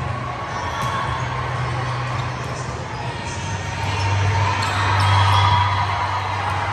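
A volleyball thudding on a gym floor and off players' hands, with the echoing noise of a large gym and a steady low hum underneath. The hall noise swells about two-thirds of the way through.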